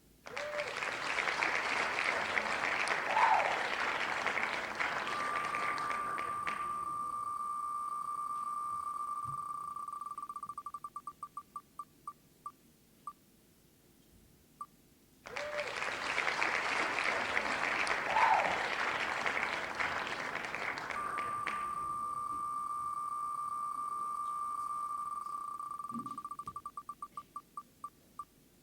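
Prize-draw spinning-wheel sound effect played twice: each time a burst of noise, then ticking so fast it blends into a steady high tone, slowing into separate ticks that space out and stop as the wheel comes to rest on a winner.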